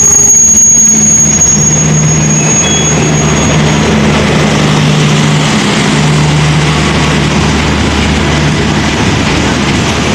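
Diesel locomotive passing close, its engine giving a steady low drone over heavy rail and wheel noise, slowly getting quieter. A horn blast ends in the first half second.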